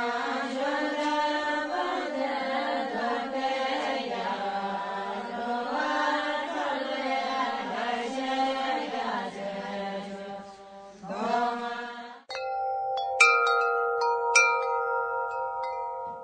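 Soundtrack of several voices chanting a mantra over a low held tone, which cuts off suddenly about twelve seconds in. Chimes are then struck a few times and ring on with long, steady tones.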